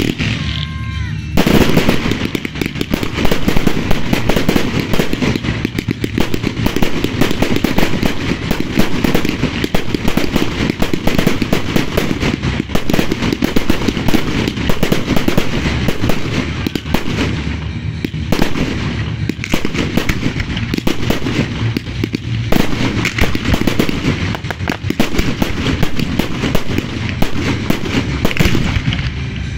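Aerial fireworks bursting in a dense, continuous barrage of rapid reports and crackle. It starts abruptly about a second and a half in.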